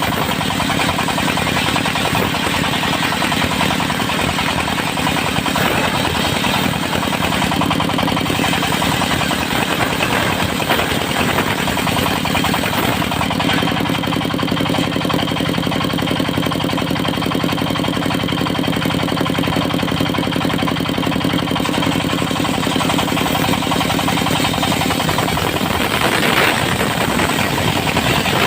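Engine of a portable circular sawmill running steadily at a constant speed, with a dense, harsh high noise over the engine note.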